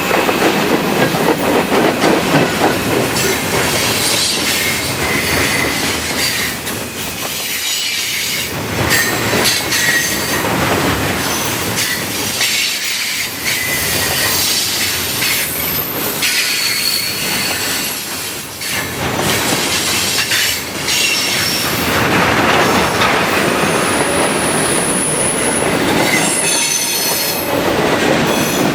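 CSX freight train rolling past close by: a steady rattle and rumble from the cars, clickety-clack over the rail joints, and wheels squealing now and then in high thin tones.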